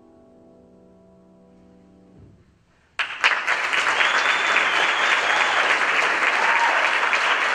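Grand piano's final chord ringing and fading away, then after a second of hush an audience starts applauding about three seconds in and keeps clapping.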